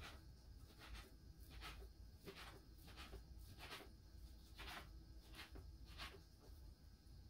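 Kitchen knife slicing raw New York strip steak into small pieces on a plastic cutting board: faint, uneven knife strokes, a little more than one a second.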